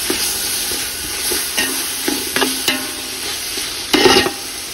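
Onion, tomato and mint masala for chicken biryani sizzling steadily in hot oil as it is stirred, with a few knocks and scrapes of the utensil against the pan; the loudest scrape comes about four seconds in.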